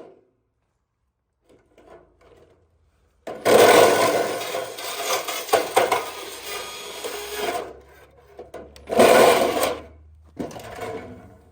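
Makita portable band saw cutting through a metal gutter in several runs: one long cut of about four seconds, a few clicks, then two short bursts near the end. The owner finds the blade's teeth too big, so it bites too fast and the saw jumps.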